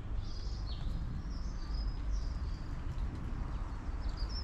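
Small songbirds chirping and twittering in short high phrases, over a steady low rumble.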